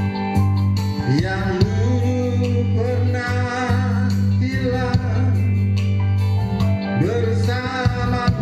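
Music: a sung pop ballad, with long held vocal notes wavering in vibrato over guitar and a steady bass line.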